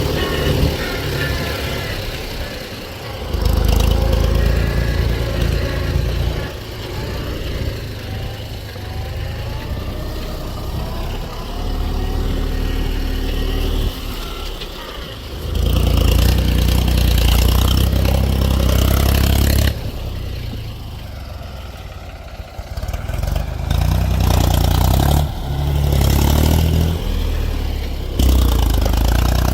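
Mahindra 275 DI tractor's diesel engine running, its sound swelling and dropping back several times as it is revved under load.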